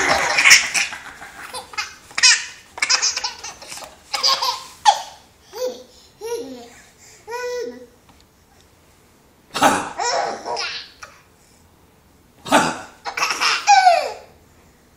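A nine-month-old baby laughing in repeated fits of high giggles and squeals, each a second or two long, with short quiet gaps between.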